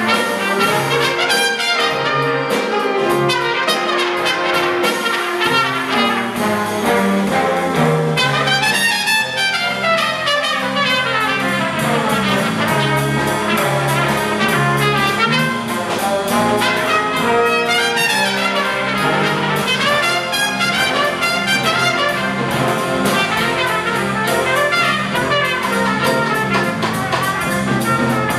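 Live big band jazz: a trumpet soloist plays quick rising and falling runs over the full band, with trombones, trumpets and saxophones backing him.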